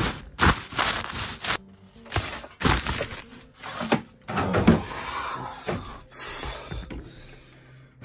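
Someone rummaging through bags and doors inside a small trailer: a string of sharp knocks and thumps with stretches of rustling in between.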